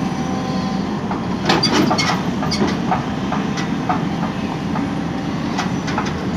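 Tata Hitachi tracked excavator's diesel engine running steadily, with a series of sharp metallic clanks and clicks over it, heaviest about a second and a half in.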